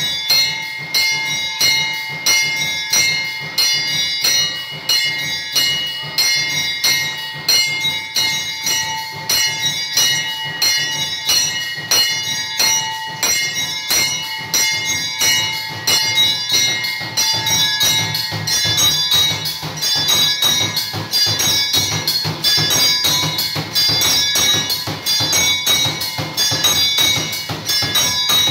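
Temple bell struck over and over in a quick, even rhythm, its ring carrying on between strokes.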